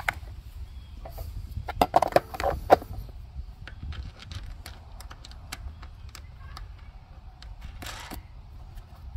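Plastic air-filter cover and its hardware being fitted on a small engine by hand: a cluster of clicks and plastic clatter about two seconds in, then scattered light clicks as the cover's knob is turned down.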